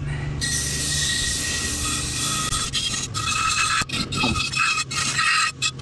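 Wire brush wheel on a small electric motor cleaning a chainsaw's muffler part: a loud hissing scrape over the motor's steady hum. The scraping cuts out for moments several times in the second half as the part comes off and goes back on the wheel.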